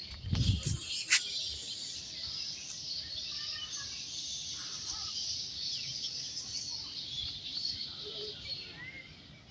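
Many birds chirping together in a steady high chorus. There is a brief low bump about half a second in and a sharp click at about a second.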